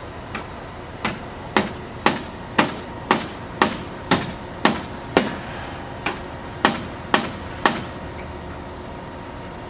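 A run of about a dozen sharp hammer strikes, roughly two a second, with one short break past the middle. They stop about eight seconds in, over a steady background machine hum.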